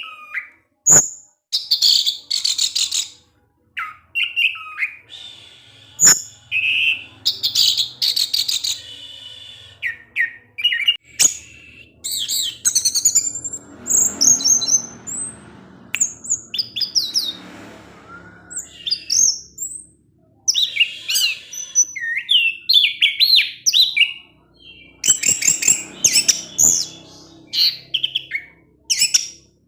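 Orange-headed thrush (spotted 'trotol' form) singing in its excited, rapid 'ngecis' style: varied runs of high chirps and fast trills with short pauses between phrases, and a few sharp clicks among them.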